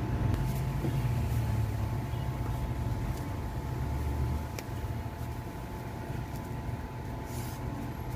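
Steady low background hum with faint steady tones above it, broken by a few faint clicks of handling.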